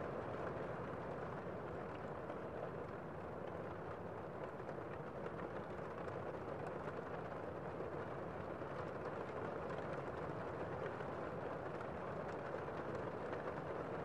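Heavy rain heard from inside a room: a steady, muffled wash of noise with little high end.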